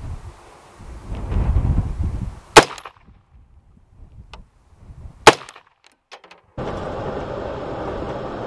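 Wind buffeting the microphone, then two sharp, loud knocks about two and a half seconds apart. From about two-thirds of the way through comes the steady running and road noise of the Jeep Wrangler driving on a snowy dirt track, heard from inside the cab.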